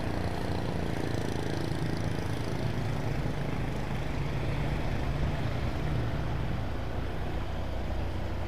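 Motorcycle engine running at a steady pace while riding, with wind and road noise on the microphone.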